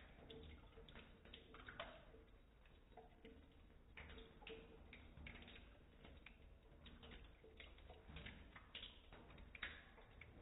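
Faint, irregular wet clicks of a Bengal cat lapping water from a trickling tap, its tongue flicking into the stream a few times a second.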